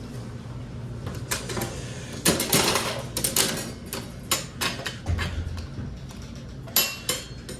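Coin-operated toy vending machine being worked: an irregular run of clicks and clunks from its mechanism.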